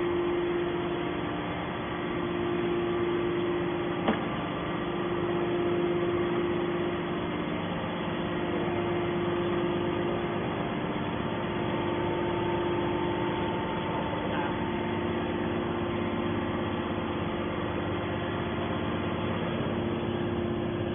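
Hydraulic scrap metal baler's motor and pump running steadily with a constant hum, and a single sharp click about four seconds in.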